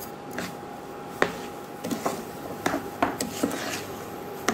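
Steel ladle scraping and knocking against a non-stick pan while stirring sugar into thick, stiffened rava kesari: a run of irregular scrapes and clinks.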